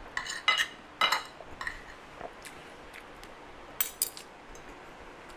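A metal spoon and fork clinking and scraping on a plate as food is cut and scooped: a scatter of sharp clinks, busiest in the first second and again about four seconds in.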